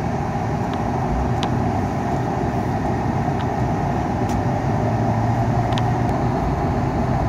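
Steady road and engine noise from a truck being driven, heard from inside the cab.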